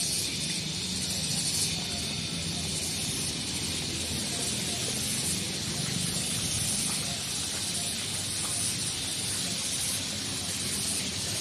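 Steady outdoor hiss with a low hum underneath, even throughout.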